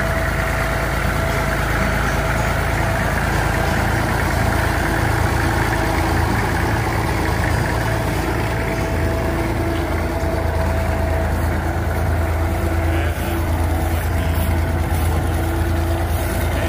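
Old Massey Ferguson tractor's diesel engine running steadily as the tractor moves slowly across pasture.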